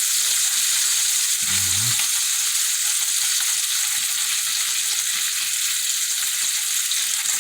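Bacon and thick-cut bologna frying in a pan, a steady high-pitched sizzle of hot fat.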